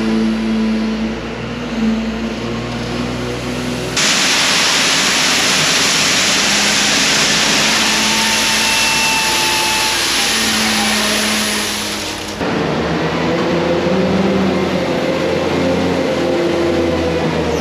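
Background music, cut off suddenly about four seconds in by a loud, steady mechanical rushing noise. The noise stops just as suddenly about eight seconds later and the music returns.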